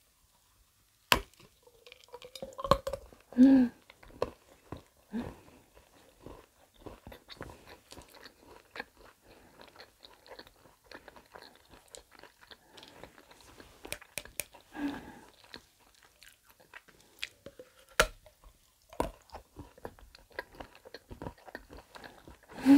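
Biting into and chewing the hollow milk-chocolate shell of a Ferrero Rocher egg studded with hazelnut pieces. There is a sharp snap about a second in, then crisp crunchy chewing, and another crack later on.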